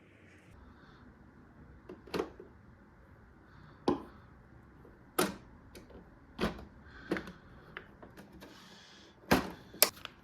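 Sharp clicks and knocks of hard plastic parts being handled, about eight of them at irregular intervals, with a brief rustle near the end, from an ink-tank printer being set up.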